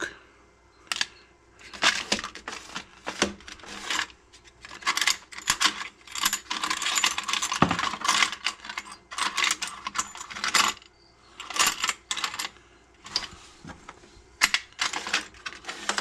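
Metal washers clinking and jingling as a hand rummages through a plastic parts-organizer drawer full of them, in bursts of rattling with short pauses.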